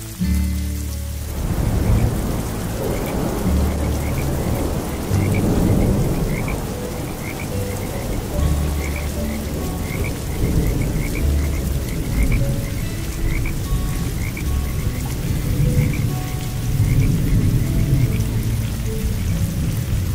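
Rain falling, coming in about a second in, with frogs croaking in quick, repeated short calls. Soft background music with long held low notes plays underneath.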